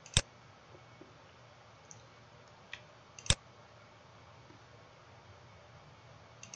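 Computer mouse button clicks: single sharp clicks about three seconds apart, with a fainter click just before the second, over faint room tone.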